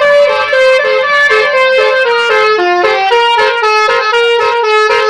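Basuri telolet horn playing a loud, quick melody of separate held notes that step up and down in pitch.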